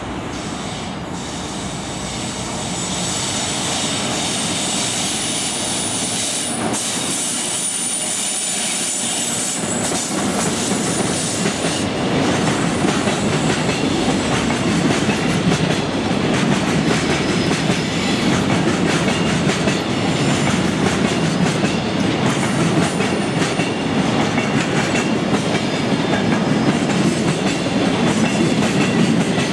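EF66 electric freight locomotive passing at speed, followed by a long string of container wagons going by with the wheels clicking over rail joints. The sound grows louder and deeper, into a heavy rumble, about ten seconds in as the wagons pass closest.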